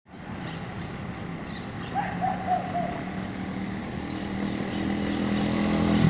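A motor vehicle engine running steadily, growing louder toward the end.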